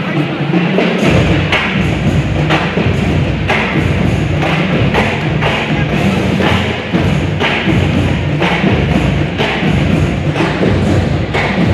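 Loud music with a heavy, steady drum beat.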